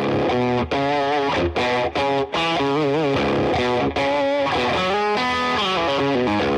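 Music led by a distorted electric guitar playing a wavering melody over a full backing.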